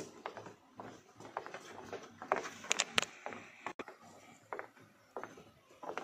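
Footsteps on a wooden boardwalk staircase: an uneven series of knocks on the wooden planks, roughly two a second, sharpest around the middle.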